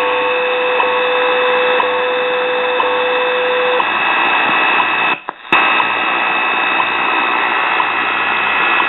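Portable shortwave radio's speaker playing the 5 MHz WWV time signal over steady static: second ticks about once a second, and a steady tone, briefly broken at each tick, that stops about four seconds in. The signal is loud with the long-wire antenna's coax held to the radio's antenna. The sound drops out briefly a little after five seconds.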